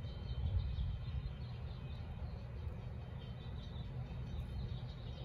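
Small birds chirping over and over above a steady low rumble of outdoor background noise.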